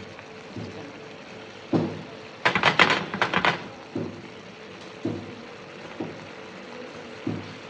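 Thick prawn masala curry boiling in a large wok, its bubbles bursting with low plops about once a second over a steady hiss. A short burst of louder crackling and rattling comes about two and a half seconds in.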